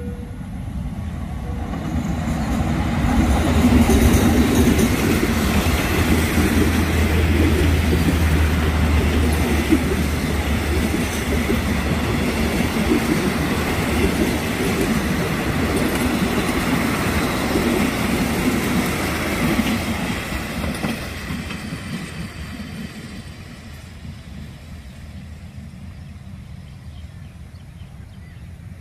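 A diesel-hauled passenger train passes close by. The locomotive's low engine hum builds and is loudest a few seconds in, then the carriages' wheels run over the rails, and the sound fades away after about twenty seconds as the train moves off.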